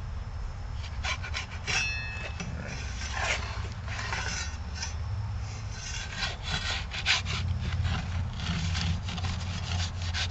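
Metal pizza peel scraping across a wooden cutting board as it is worked under raw pizza dough, in many short, irregular strokes.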